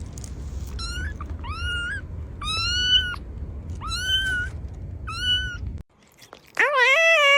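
A cat meowing, about five short, high-pitched meows in a row over a low background rumble. After an abrupt cut, a longer, lower, drawn-out meow begins near the end.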